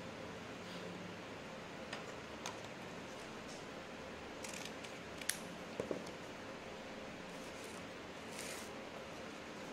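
Satin ribbon being handled and cut into strips with scissors: soft rustling of the ribbon and a few short, sharp snips, the loudest about five seconds in, over a steady background hiss.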